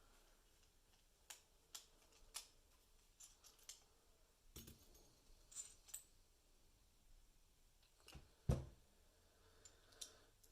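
Scattered light clicks and taps of the small brass parts of a Lockwood 334B45 lock being handled as it is taken apart, with one louder knock about eight and a half seconds in.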